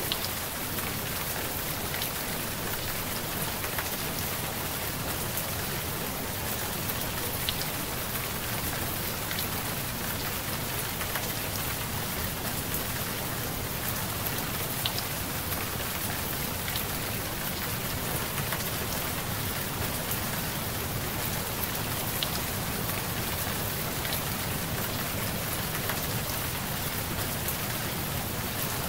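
Steady rain, a dense even hiss with scattered ticks of single drops.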